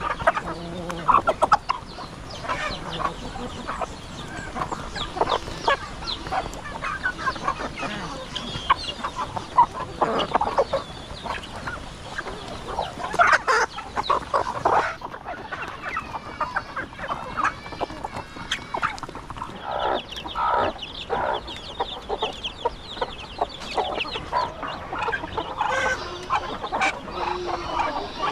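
A large flock of chickens clucking and calling, with many short calls overlapping one another.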